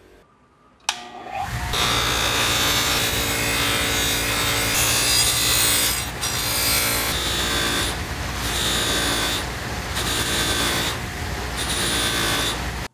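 Bench grinder running, a thin metal strip and then a small metal ring held against its abrasive wheel. The grinding hiss swells and eases in several passes over the steady hum of the motor.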